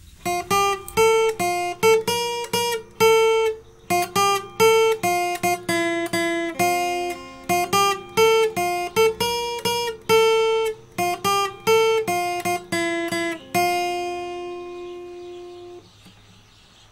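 Acoustic guitar playing a melody of single plucked notes, about three a second. Near the end a last chord is left to ring out and fade away. It is recorded through a CAD U37 USB condenser microphone as a test of the mic.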